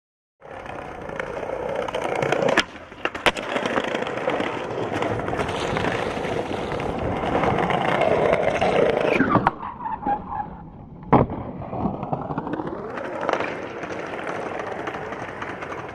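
Skateboard wheels rolling over paving slabs with a steady rumble, broken by a few sharp clacks of the board hitting the ground. The rolling gets quieter a little past halfway, and one loud clack stands out after that.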